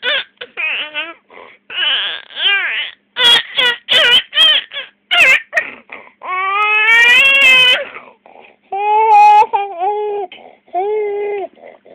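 Infant babbling: a string of short, high-pitched vocal sounds that bend up and down in pitch, with one longer drawn-out sound lasting nearly two seconds about six seconds in.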